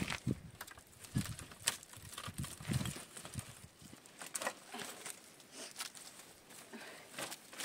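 Irregular footsteps and scuffs on stony ground, with the dry sticks of a firewood bundle carried on the back rustling and scraping against rock.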